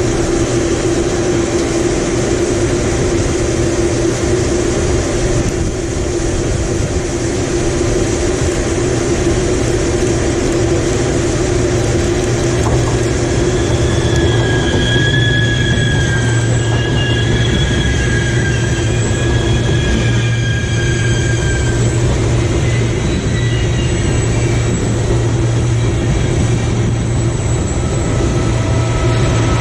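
Regional push-pull train of double-deck coaches with an electric locomotive running in along the station track, with a steady hum of running gear and traction. Partway through, high-pitched wheel squeals come in for several seconds, and a lower squeal follows near the end.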